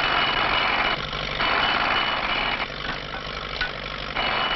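Railway track-maintenance machinery running, its loud mechanical noise starting and stopping abruptly in stretches of about a second over a steady low hum, with a thin steady whine during the loud stretches.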